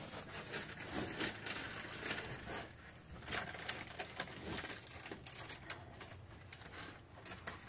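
Rustling and crinkling of a white woven plastic sack being handled, with irregular light clicks and knocks throughout.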